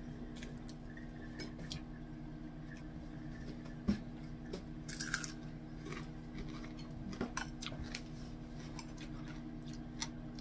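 Someone eating at the table: chewing and scattered clicks of a spoon against a plate, the sharpest about four seconds in, over a steady low hum.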